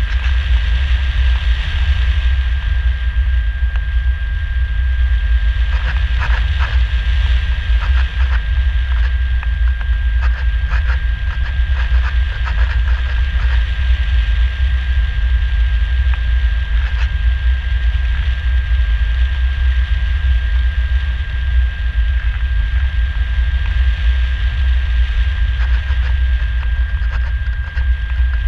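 Airflow buffeting the microphone of a camera mounted on a Radian Pro RC glider in flight: a loud, steady low rumble with a thin, steady high whine over it, and scattered crackles in the first half.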